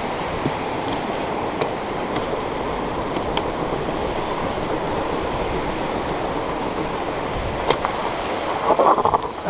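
Steady rushing of Lake Superior waves on the shore mixed with wind on the microphone, with a sharp click and a short rustle near the end.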